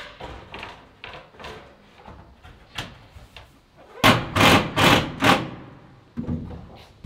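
Knocking and banging from steel siding work: scattered light knocks, then four loud sharp strikes in quick succession about four seconds in, and a few softer knocks after.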